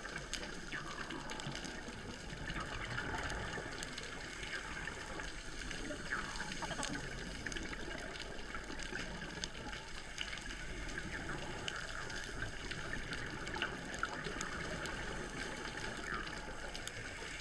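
Underwater sound of scuba divers breathing out through their regulators: bubbles gushing and rising, over a steady crackle of small clicks.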